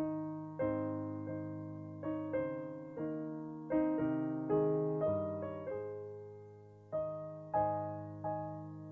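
Slow solo piano music: notes and chords struck one after another, each left to ring and fade.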